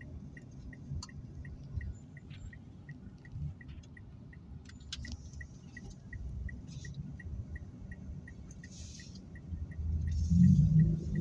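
A car's turn-signal indicator ticking evenly, about three ticks a second, over low engine and road rumble heard from inside the cabin. The rumble grows louder near the end as the car speeds up.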